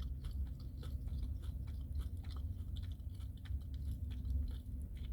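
A person chewing food close to the microphone: many small, irregular mouth clicks at a steady pace.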